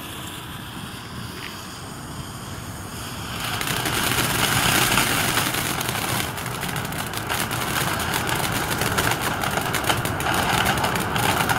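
Dominator Small Golden Flower ground fountain firework burning: a steady rushing hiss of spraying sparks. It grows much louder about three and a half seconds in and stays loud with many crackles.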